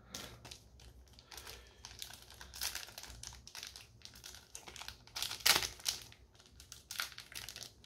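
Foil booster-pack wrapper crinkling and crackling in the hands as it is fumbled open, with a louder crackle about five and a half seconds in.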